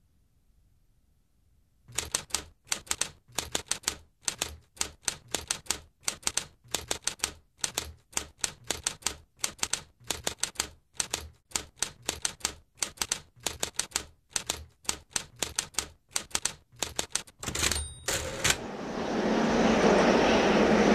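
Typewriter keys clacking in quick runs of strikes, with a brief high ring near the end. It is followed by a rising rushing noise.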